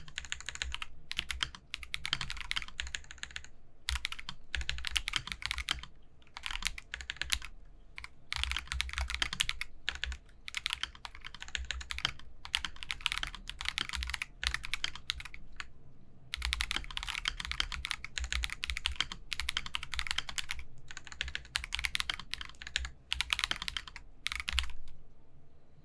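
Akko 5075B Plus mechanical keyboard with CS Creamy Yellow linear switches being typed on: quick runs of keystrokes in bursts of a second or two, with short pauses between.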